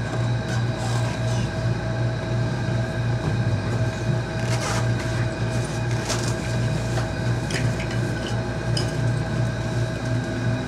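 Skyrail suspended people-mover car running slowly through a station, heard on board: a steady low hum with a regular pulse, a few steady tones above it, and scattered clicks and rattles.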